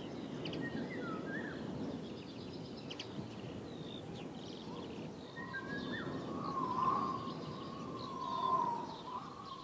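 Small birds chirping and calling over steady low outdoor background noise. A longer, louder call comes in the second half.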